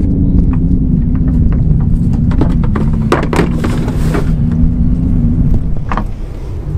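Heavy plastic watermaker case knocking against the sides of a boat's deck locker as it is lowered in, several knocks in the middle and one near the end, over a steady low rumble.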